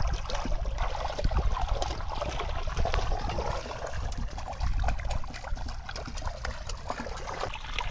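Water splashing inside a bamboo cone fish trap (polo) held down in a pond, as a trapped fish thrashes and a hand gropes after it: many quick irregular splashes over a low rumble.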